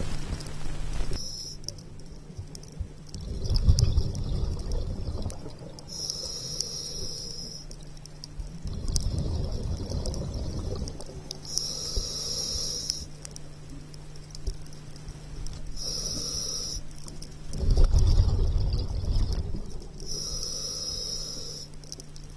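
Scuba regulator breathing underwater: a short hiss on each inhale alternating with a louder burst of rumbling exhaust bubbles on each exhale, about one breath every five seconds, over a steady low hum.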